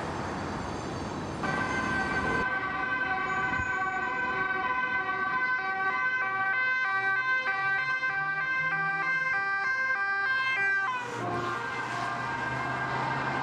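Police car sirens sounding, most of the way through as a two-tone siren stepping quickly back and forth between a high and a low note. Street traffic is heard underneath. The sound changes abruptly about a second and a half in and again near the end.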